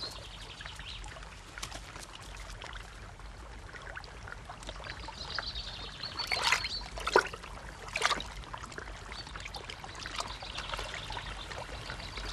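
Sea water trickling and lapping among shore rocks, with a few louder splashes about six to eight seconds in as an otter swims and dives.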